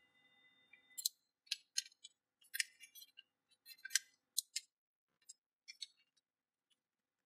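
A folded sheet of origami paper crackling and rustling as hands press and smooth it flat: a run of sharp, crisp crackles that thin out after about five seconds.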